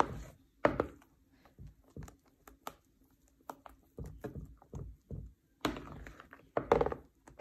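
A spatula folding chocolate mousse in a bowl: irregular soft knocks and scrapes as it works through the mix and touches the bowl.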